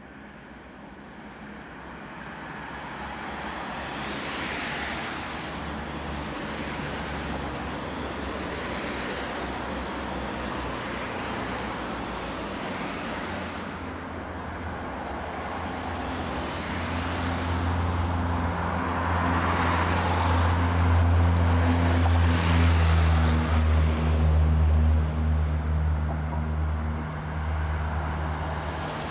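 Road traffic going past close by, cars swishing by in waves. A steady low hum joins about halfway through and is loudest over the last third.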